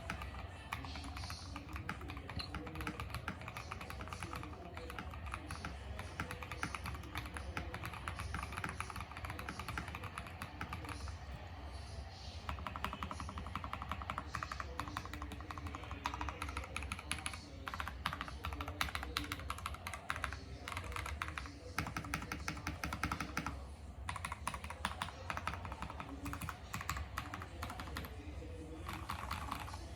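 Fast, continuous typing on a NextTime75 mechanical keyboard with lubed Akko Matcha Green switches, foam- and tape-modded, with GeekArk BOW keycaps: a soft, creamy key sound. A few brief pauses break the typing, and a steady low background hum runs under it.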